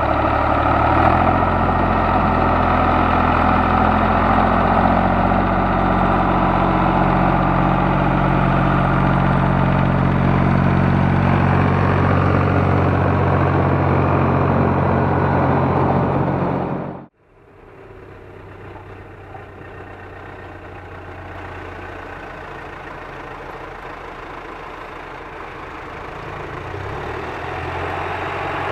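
Zetor 3340 tractor's diesel engine running steadily under load, with the rattle of the Grimme potato harvester it pulls. About two-thirds of the way through it cuts off abruptly, giving way to a quieter tractor engine that grows louder toward the end.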